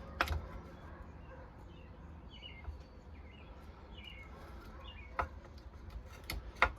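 Faint birds chirping in short calls, over low background hum, with a few sharp clicks and taps from handling the jig: one just after the start, one past five seconds in and two close together near the end.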